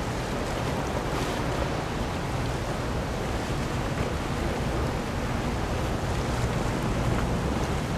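Steady wind noise on the microphone over the wash of choppy water, an even rush with a heavy low rumble and no distinct events.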